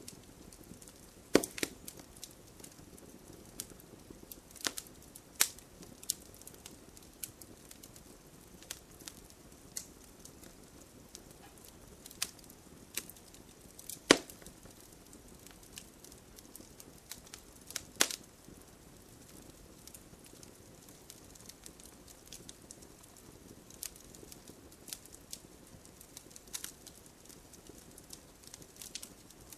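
Wood fire crackling: a low steady hiss with irregular sharp pops and snaps, the loudest about a second and a half in, near 14 seconds and near 18 seconds.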